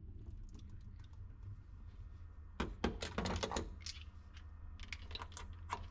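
Steel sockets clinking against one another and the metal toolbox drawer: scattered light clicks, a quick cluster of ringing clinks about halfway through, and a few more near the end, over a low steady hum.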